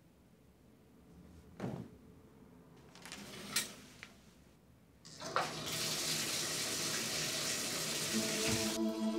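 Bathtub spout turned on: after a soft swish and a sharp click, water runs in a steady rush from about halfway through. Near the end the shower diverter is pulled and the flow briefly drops as it switches over, while low held tones of the score come in.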